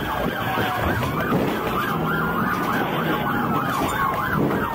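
Police cruiser sirens in a rapid yelp, the pitch sweeping up and down about five times a second. A second, slower siren tone glides gradually downward alongside it, over low engine and road noise.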